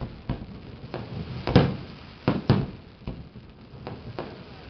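Fireworks exploding: a series of sharp bangs at uneven intervals, about eight in all, the loudest a second and a half and two and a half seconds in.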